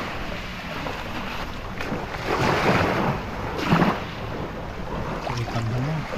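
Small waves washing onto a shell-grit beach and against a concrete seawall, with two louder washes in the middle, over wind buffeting the microphone.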